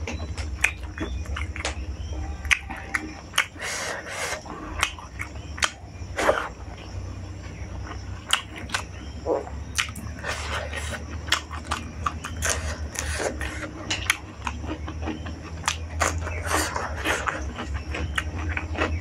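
Close-miked eating: chewing rice and chicken with wet mouth smacks and clicks coming in quick, irregular succession, over a steady low hum.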